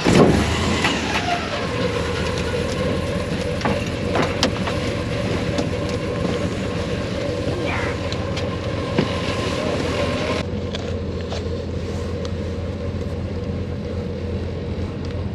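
An engine running steadily just after starting, a constant drone with a held low tone. About ten seconds in, the sound changes abruptly and loses its hiss.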